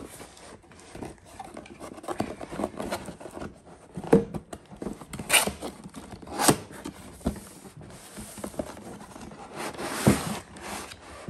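A laptop's cardboard box and packaging being opened by hand: irregular scraping, rubbing and tearing of cardboard, with a few louder sharp scrapes or rips.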